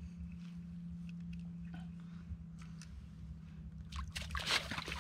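A trout splashing and thrashing in the water of an ice-fishing hole as it is pulled up through the ice. It starts about four seconds in and is the loudest sound, over a steady low hum.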